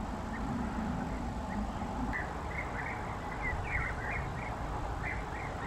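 European bee-eaters calling: a run of short, repeated calls that come thicker from about two seconds in, over a steady low rumble.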